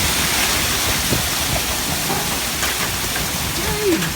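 Heavy rain pouring down in the storm's wake, a steady hiss, with a brief rising-then-falling tone near the end.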